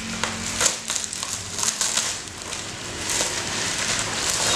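A white packaging bag crinkling and rustling as it is opened and pulled off a box, with irregular sharp crackles.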